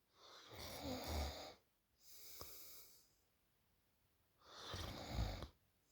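A sleeping woman snoring: two loud snores about four seconds apart, each with a low rumble, and a softer breath out between them.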